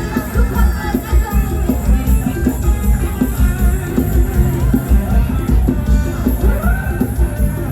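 Rock-style music with a drum kit and guitar over a strong, steady bass beat.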